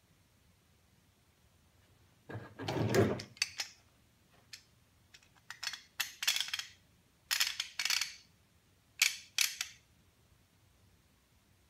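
Small screw clamp being handled and tightened onto a glued wooden block. A scrape comes about two seconds in, then several short bursts of sharp rasping clicks.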